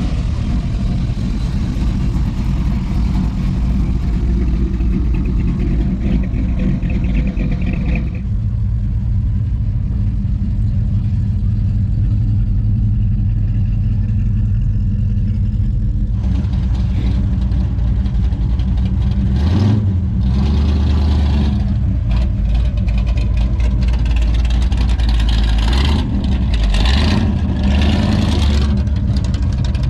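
Car engines running and revving loudly as show cars drive off one after another, the engine sound changing about eight and sixteen seconds in, with louder revs later on.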